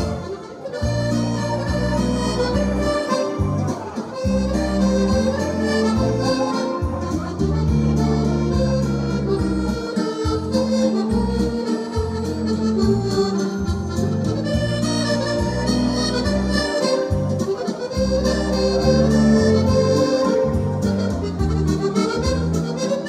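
Accordiola chromatic button accordion playing a musette waltz, a melody on the treble buttons over sustained bass notes.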